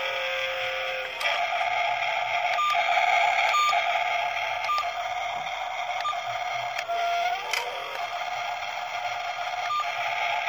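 Whine of a toy remote-control excavator and dump truck's small electric motors and gearboxes: one steady pitch held for seconds at a time, with a rising glide as a motor speeds up, about a second in and again near seven seconds. Several short high beeps come and go.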